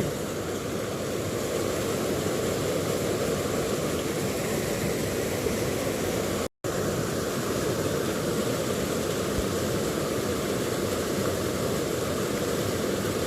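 Steady rush of a rocky stream flowing over stones, cut off for a moment about halfway through.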